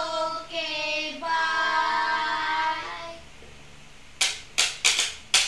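A young child singing, holding long drawn-out notes, then a brief pause and about five sharp hand claps in quick succession near the end.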